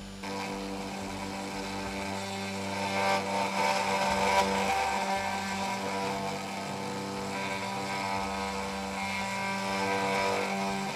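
CNC router spindle running with a 1/8-inch O-flute end mill boring into a 6061 aluminum plate: a steady motor whine with cutting noise on top. It starts up just after the beginning and is louder for a moment three to four seconds in.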